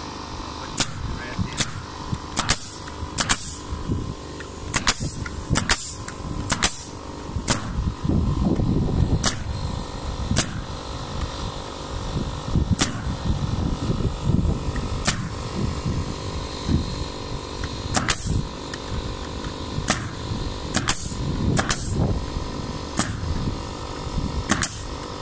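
Pneumatic framing nailer driving nails through plywood subflooring into the joists: about twenty sharp shots at irregular intervals, often a second or so apart, some in quick pairs. A steady mechanical hum runs underneath.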